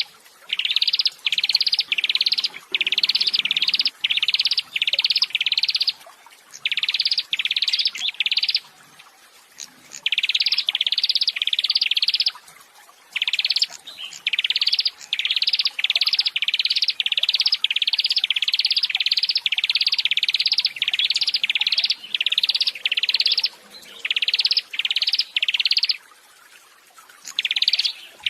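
A songbird repeating one sharp, bright chirp about three times a second in runs of three to a dozen, with short pauses between runs.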